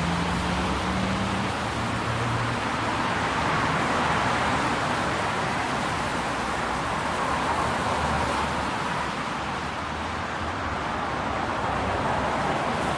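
City traffic on wet roads: a continuous hiss of tyres on wet tarmac, swelling gently as vehicles pass, with a low engine hum underneath.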